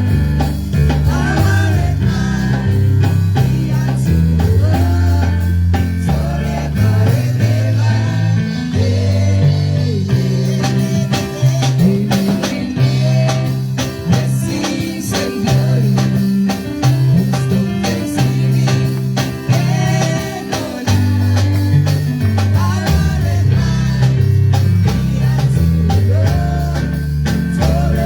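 Gospel worship song: voices singing over a steadily moving bass line and a drum kit.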